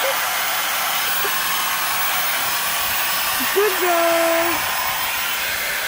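Corded angle grinder running steadily with its cutting disc on the steel shell of a fridge compressor, cutting the casing open.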